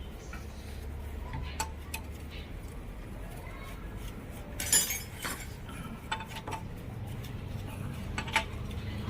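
Metal hand tools and engine parts clinking and tapping now and then during timing chain work, the loudest clink about halfway through, over a steady low hum.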